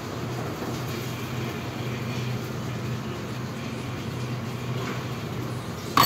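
Steady hum and rush of a commercial kitchen's extraction hood and equipment running. A sharp metallic clack right at the end.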